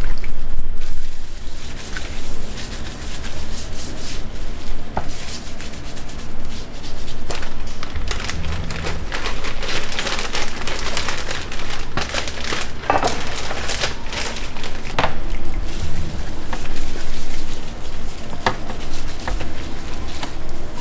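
Clear plastic bag crinkling and rustling as a wooden cutting board is slid into it and handled, loudest in the middle, with a few light knocks of the wooden board.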